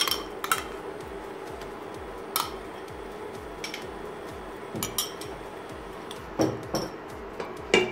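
A metal spoon scraping tomato paste out of a ceramic bowl and knocking against the bowl and the rim of a stainless steel pot: a handful of scattered clinks and taps over a faint steady hum.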